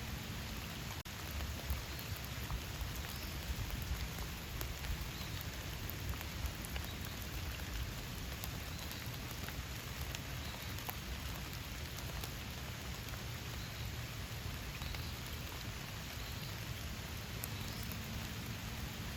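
Steady rain falling, with many separate drop hits ticking through the constant hiss. The sound dips out for an instant about a second in.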